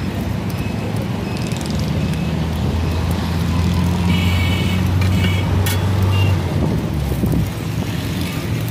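Road traffic with a motor vehicle engine running close by: a steady low hum that swells midway and drops away about six and a half seconds in, over general traffic noise.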